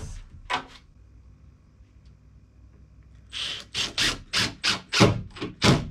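A run of about eight sharp knocks, roughly three a second, starting a little past halfway and loudest near the end, from casters being fitted to the underside of a drawer.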